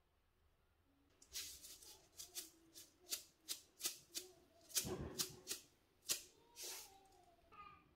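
A spice shaker shaken over a bowl: about a dozen short, hissy shakes of powder, starting about a second in and ending near the end.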